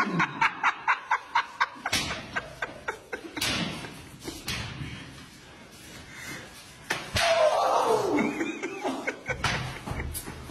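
A quick burst of laughter, then a scatter of sharp smacks and thuds, with a loud falling yell a little after the middle.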